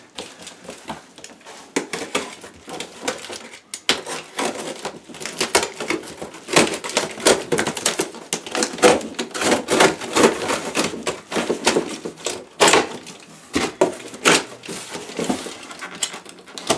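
A box cutter slicing along the packing-taped seam of a large cardboard box, with irregular scratching, scraping and crackling of tape and cardboard as the blade is drawn and the flaps are pulled apart.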